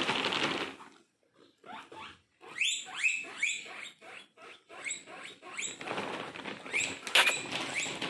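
Guinea pigs wheeking: a string of short, high, rising squeaks, two or three a second, after a rustle of hay and bag at the start, with a sharp crackle near the end.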